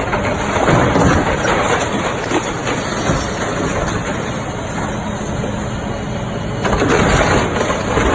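Excavator's diesel engine working under load, a dense steady rumble that swells briefly about a second in and grows louder again near the end.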